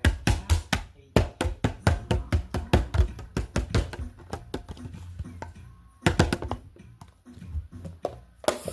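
Outro music with a quick percussive beat, which pauses briefly about two-thirds of the way through and then picks up again.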